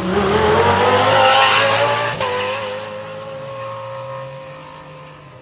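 GT race car accelerating hard from the start line, its engine rising in pitch through about two seconds. It then breaks off suddenly, and a steadier engine note grows fainter as the car draws away up the road.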